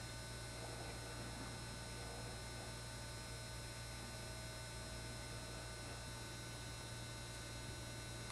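Steady electrical hum with a low buzz and faint hiss, unchanging throughout, with no knocks or taps.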